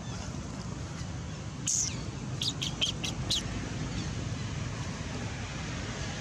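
A single short, high chirp, then five quick sharp chirps in about a second, over a steady low rumble.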